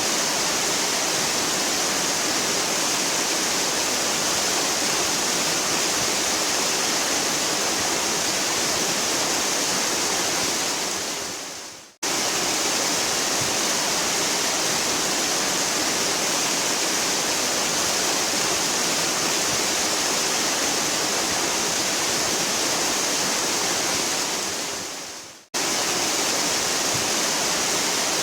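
Waterfall, a steady hard rush of falling water. It fades away twice, about 12 seconds in and again near 25 seconds, then cuts straight back in at full level, like a looped recording.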